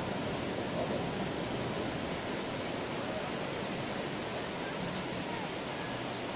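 Ocean surf breaking on a beach: a steady, even wash of noise with no single wave standing out.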